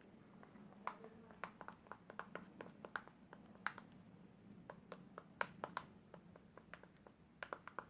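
Faint, irregular clicks and taps of a utensil stirring a glue, water and shaving-foam slime mixture in a bowl.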